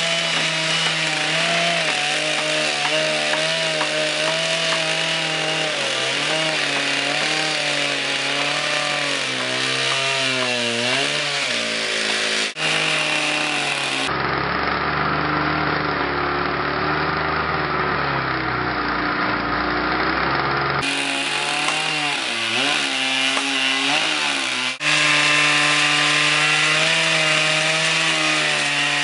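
Two Husqvarna 3120 XP two-stroke chainsaws driving one 6-foot bar, running hard while cutting through a tree trunk, their pitch sagging and recovering under load. The sound changes abruptly a few times, where the recording is cut.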